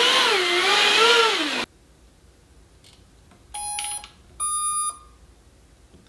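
A small electric hovercraft's fan motor whining loudly, its pitch wavering up and down over and over as the throttle is worked, then cutting off suddenly about a second and a half in. After that it is nearly quiet apart from two short electronic beeps, the second higher than the first.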